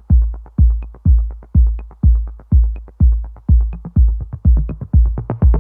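Electronic dance music: a steady, loud kick drum at about two beats a second with light ticking percussion over it, and no other instruments until a synth part comes in at the very end.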